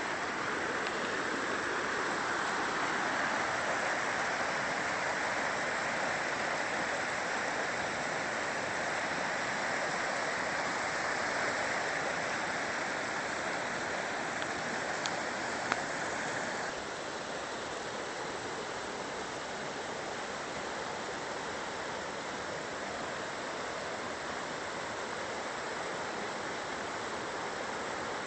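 Mountain river rushing over rocks: a steady, even rush of water that turns a little quieter about 17 seconds in.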